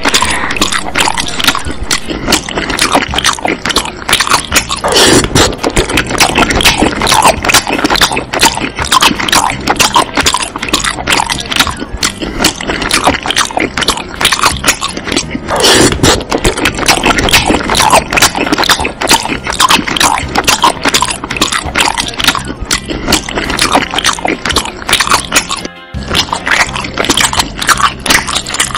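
Background music playing continuously, with a brief drop about three seconds before the end.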